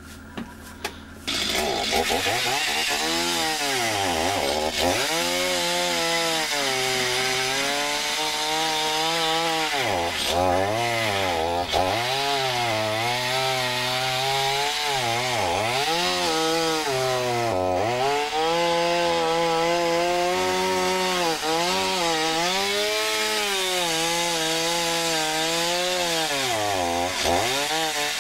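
Chainsaw running and cutting through brush and branches. It starts about a second in, and its pitch keeps dropping and rising again as the chain bites into the wood and is revved back up.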